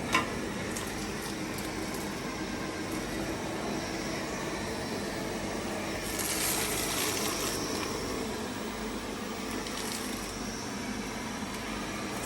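Xiaomi Robot Vacuum Mop Essential running, a steady hiss of its suction fan and brushes as it sweeps up scattered rice. A sharp click right at the start, and the hiss grows louder for about a second and a half past the middle.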